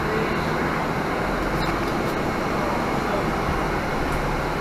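Steady engine and road noise of a 2018 Nova Bus LFS diesel transit bus under way, heard from inside the passenger cabin.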